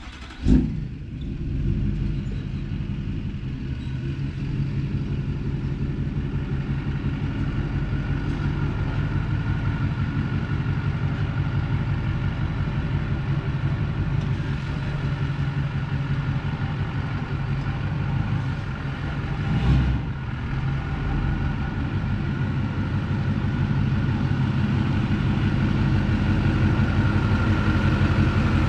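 GMC Sierra's Duramax 6.6 L V8 turbodiesel running as the pickup drives slowly up toward the listener: a steady low rumble that grows louder as it comes closer. A brief loud burst comes about half a second in.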